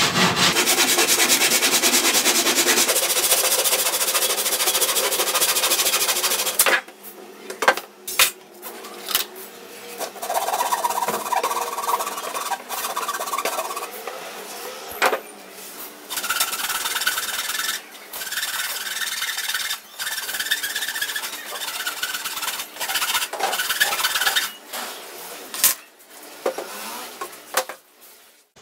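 A handsaw cutting through laminated particleboard in a continuous run of strokes, stopping about six and a half seconds in. After that come scattered knocks and scraping as the cut wooden panels are handled and set against each other.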